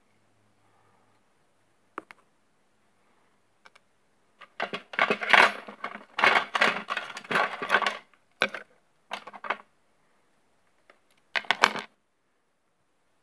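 Small metal objects clinking and rattling in irregular bursts, with a few lone clicks first and a long busy stretch in the middle. This is typical of metal pedicure tools such as a needle or scissors being handled.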